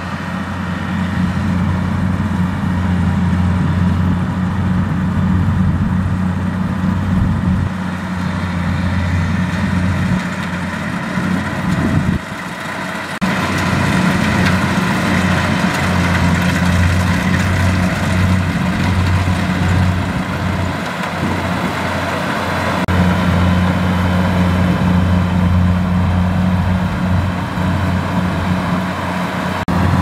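Kubota rice combine harvester working in the crop: its diesel engine and cutting and threshing machinery running in a steady low drone, which briefly drops about twelve seconds in.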